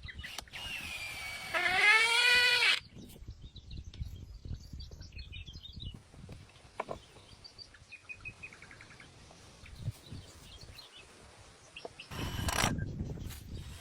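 An animal's drawn-out call with a clear pitch about two seconds in, followed by faint high bird chirps and a short rapid trill. Near the end comes a louder, noisy rustle.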